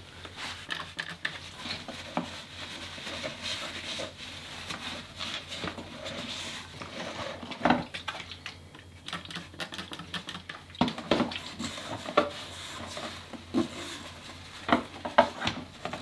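Crumpled paper towel rustling and rubbing as the inside of a bicycle suspension fork's lower legs is wiped out. Several sharp knocks come through, about eight seconds in and again later, as the fork lowers are handled and moved in a plastic tub.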